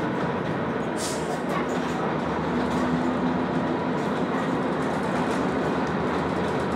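Jelcz 120M city bus's diesel engine running under way, heard inside the passenger cabin as a steady rumble mixed with road and body noise, with a few light rattles or clicks about a second in.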